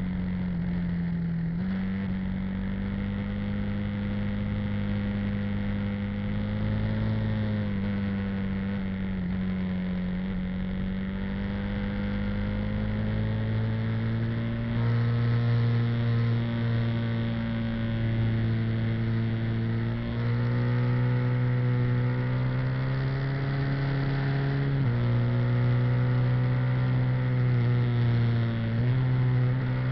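Motorcycle engine running under way at cruising speed, its pitch slowly rising and then stepping abruptly a few times as the rider changes throttle and gear. It gets louder about halfway through.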